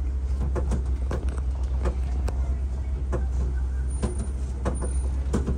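Safari truck driving over a rough, bumpy track: a steady low rumble of engine and road with scattered knocks and rattles from the bumps.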